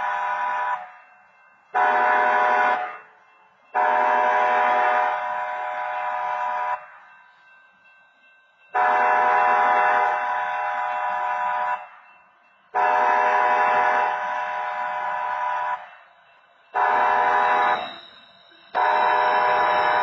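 Locomotive air horn sounding a series of blasts with sudden starts and fading tails, mostly about three seconds long with short ones between. The last four go long, long, short, long: the grade-crossing warning signal.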